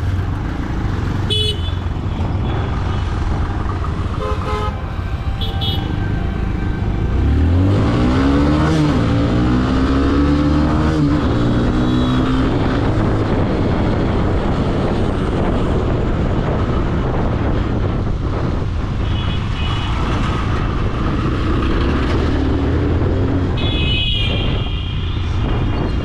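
Motorcycle riding in traffic: steady engine and road noise, with an engine revving up and climbing in pitch about a third of the way in. Vehicle horns honk several times, briefly near the start and longest near the end.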